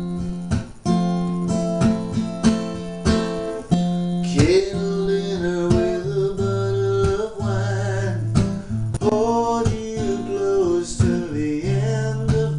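Acoustic guitar strummed in a steady rhythm, with a man singing a held melody over it from about four seconds in.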